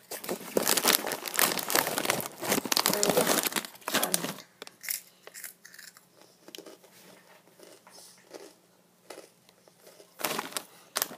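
A Cheetos bag crinkling and rustling as it is handled, loud and dense for about four seconds, then fainter scattered crackles, and another burst of crinkling near the end.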